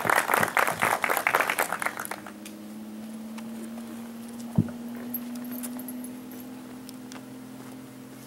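Scattered hand clapping from the audience that dies away about two seconds in. After it comes a steady low hum, with a single knock about halfway through.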